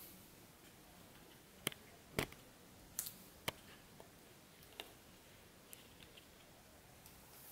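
A handful of sharp clicks and taps, irregularly spaced, the loudest ones in the first half.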